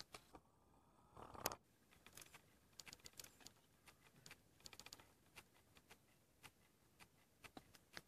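A leopard licking and grooming another leopard: faint, quick clicks and smacks of the tongue in irregular runs, with one louder brief sound about a second and a half in.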